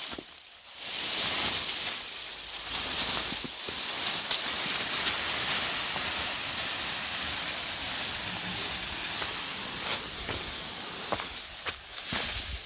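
Steady rustling hiss of leafy branches lasting about eleven seconds, with a few faint twig snaps.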